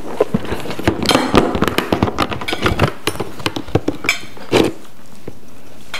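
Plates and cutlery clinking and knocking in quick, irregular succession at the table, dying away about four and a half seconds in.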